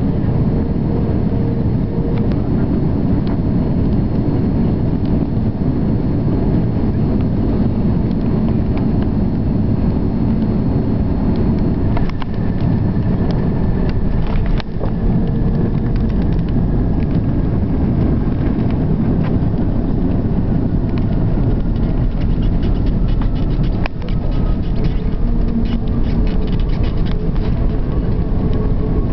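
Steady loud rumble in the rear cabin of an Airbus A340-600 with its Rolls-Royce Trent engines running, with a faint engine whine that glides slowly down in pitch over the second half. Light rattling clicks come in near the end.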